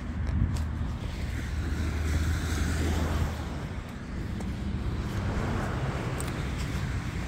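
Outdoor wind noise: a low rumble on the microphone with a rushing hiss that swells and fades twice.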